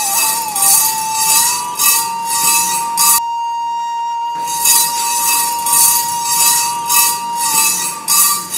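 Background music: one long, steady held note over a metallic jingle that beats about twice a second. The jingle drops out for about a second near the middle.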